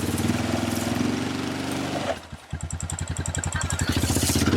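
Four-wheel-drive engine revving under load as a bogged vehicle tries to drive out; it eases off about two seconds in, then builds up again.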